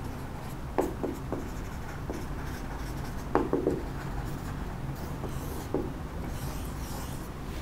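Marker pen writing on a whiteboard, with a few short taps of the tip against the board.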